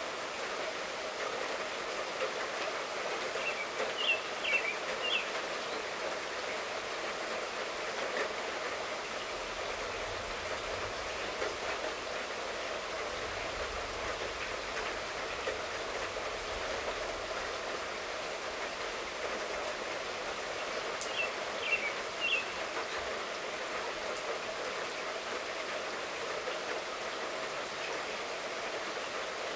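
Steady light rainfall, an even hiss of falling rain. Birds chirp briefly twice, about four seconds in and again near twenty-one seconds, and a faint low rumble runs through the middle.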